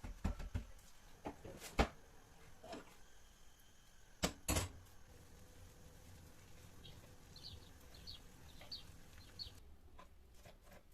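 A few sharp knocks and clicks, the loudest two close together about four seconds in, then a run of faint, short, high chirps near the end.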